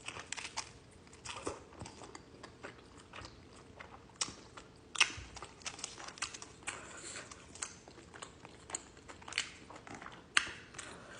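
Close-up chewing and biting of a chicken avocado burrito: irregular wet mouth clicks and soft crackles, with a few sharper bites along the way.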